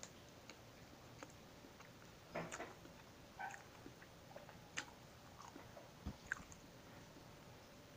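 Faint, close-up mouth sounds of someone chewing soft mamon sponge cake: scattered small wet clicks and lip smacks, with a few short louder clusters.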